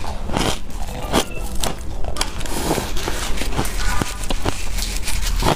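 Ice dusted with matcha powder being chewed, a quick, irregular run of crisp crunches.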